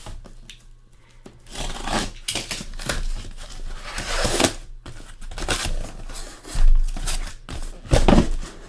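Cardboard case of sealed trading-card boxes being opened and unpacked: a run of scraping, tearing and rustling of cardboard, with two heavier thumps near the end as boxes are handled.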